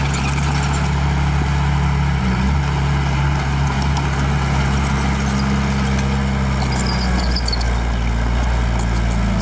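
Small bulldozer's diesel engine running steadily as it works, its note shifting about two seconds in and again around seven seconds in.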